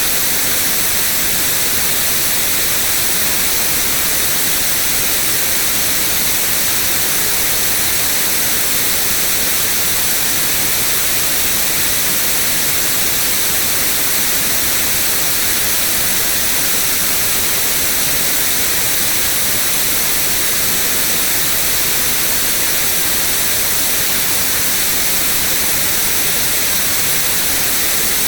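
White noise: a steady, even hiss that does not change.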